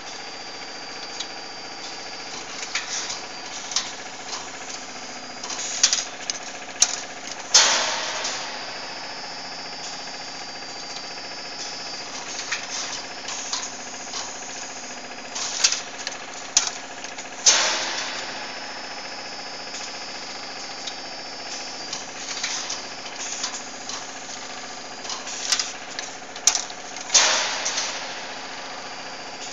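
Automatic cold-forging hydraulic press line running, with a steady hum and a high whine. About every ten seconds comes a run of metal clicks and clanks from the steel billets and feeder, ending in a loud, ringing metal bang, three times in all.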